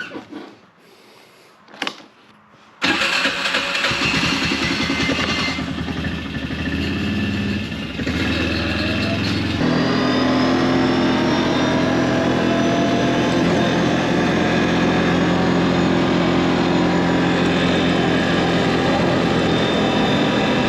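A few faint knocks, then a vehicle engine starts about three seconds in, runs unevenly for a few seconds, settles into a steady run about ten seconds in, and drives off with its pitch slowly rising.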